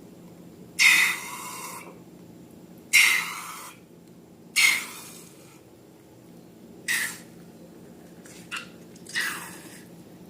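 Slime being squeezed and pressed by hand, in six short sudden squishes a second or two apart, over a low steady hum.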